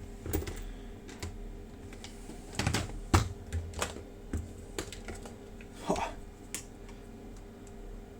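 Irregular small clicks and knocks, about a dozen, from handling the airsoft test gun, with the loudest knock a little after three seconds in. No motor or firing cycle is running.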